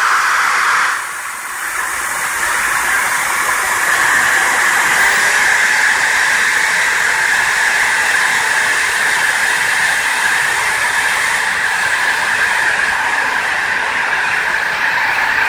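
Corded electric drill running steadily, its small abrasive disc grinding against the copper base of a CPU water block as it is lapped. The sound eases briefly about a second in, then settles into a steady grind.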